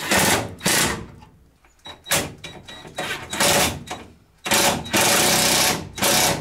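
Impact wrench hammering in six short bursts, the longest a little over a second, as it drives home the bolts of the engine carrier.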